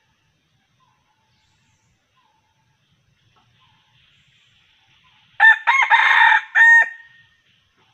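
Junglefowl-type rooster crowing once, about five seconds in: a short crow of under two seconds, broken into a few phrases and ending abruptly.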